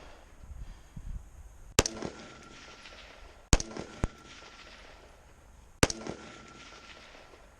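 AR-15 carbine firing four single shots: one, a second about 1.7 s later, a quick follow-up half a second after that, then a last shot about 1.8 s on.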